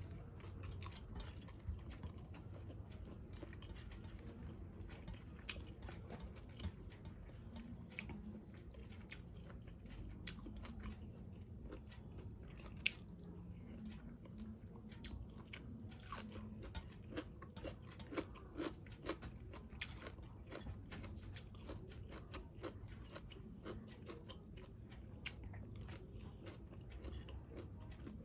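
Close-miked chewing and crunching of food, with many small irregular crackles and clicks from the bites.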